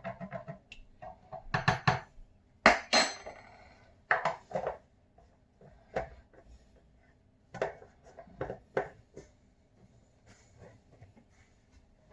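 Irregular clinks and knocks of a coffee mug and spoon being handled while the creamer coffee is made ready. The loudest knock comes just under three seconds in.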